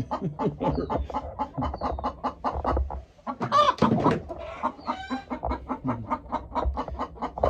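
Chickens clucking in quick, dense, repeated calls, with one louder drawn-out squawk about three and a half seconds in.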